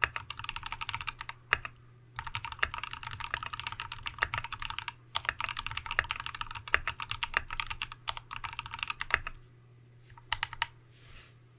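Typing on a TX75v2 custom mechanical keyboard with a brass plate, lubed Tealios V2 linear switches with Cherry top housings, and MT3-profile Dev/tty keycaps. Fast runs of keystrokes broken by short pauses, then thinning to a few last key presses near the end.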